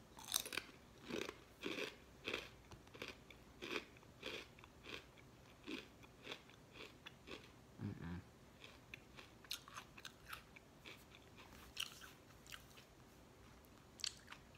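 A person chewing ridged Walkers Double Crunch potato chips with the mouth close to the microphone: a steady run of crisp crunches, about two a second.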